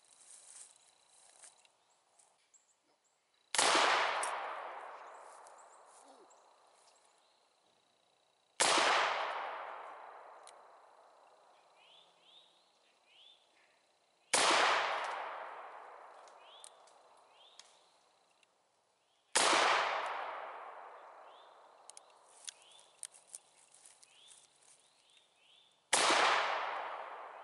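Five shots from a Colt Walker .44 black-powder percussion revolver, about five seconds apart. Each is a sharp crack followed by a long echo that dies away over several seconds.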